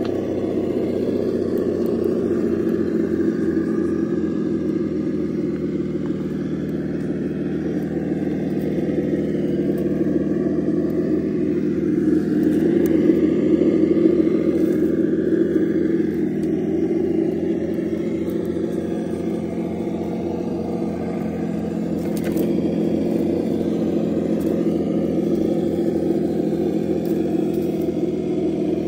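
RC crawler's ESS-Dual+ engine sound simulator playing a simulated engine's pulsing low rumble through its speaker, swelling a little louder about halfway through.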